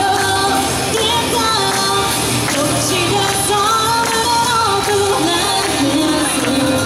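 Women singing a pop song into handheld microphones over a backing track with a steady bass, amplified through a PA.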